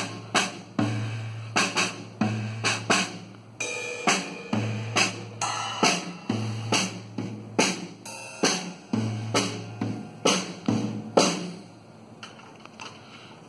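Acoustic drum kit played live, with bass drum, snare and cymbals in a steady beat. It ends with the loudest hit about eleven seconds in, which rings away.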